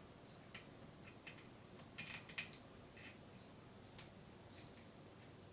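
Faint scattered clicks and taps of metal doorknob hardware being handled as the mounting screws are lined up with the holes, with a quick cluster of louder clicks about two seconds in.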